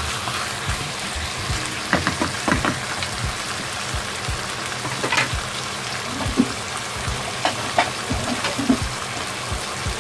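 Pieces of chicken and pork belly sizzling steadily in a hot frying pan. A wooden spatula scrapes and knocks against the pan as it stirs them in the first half, with scattered sharp pops and clicks throughout.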